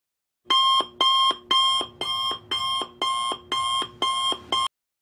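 Electronic alarm-style beeping: nine short beeps, about two a second, each with several tones sounding at once. The last is cut short and the beeping stops suddenly.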